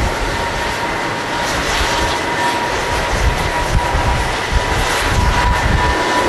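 A Boeing 777-200 airliner's twin turbofan engines running at high power for takeoff: a steady jet roar with a constant whine on top.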